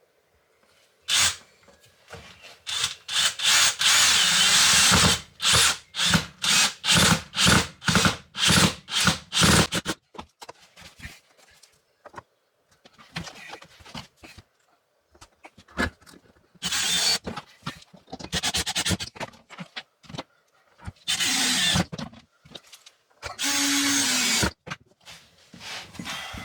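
Power drill running in a quick string of short trigger bursts, then a few longer runs with pauses between, the last one with a steady motor whine.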